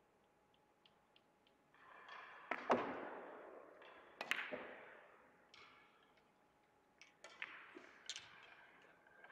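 Russian pyramid billiard balls struck hard into a tight cluster: a sharp clack of the cue shot about two and a half seconds in, then a loud crack as the balls scatter. Further clacks follow as the balls hit one another and the cushions, with a fading rolling sound after each.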